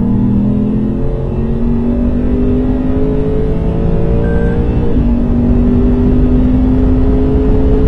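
Lexus RC F's 5.0-litre V8 under full acceleration, heard from inside the cabin: the engine note climbs steadily in pitch through the gears and drops back at each upshift, about a second in and again about five seconds in.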